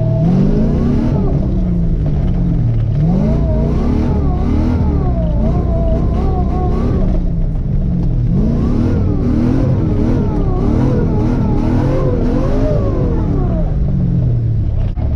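LS1 V8 engine in a Mazda RX-7 FC, revved up and down over and over while the car is drifted, its pitch climbing and dropping about once a second over a steady low rumble.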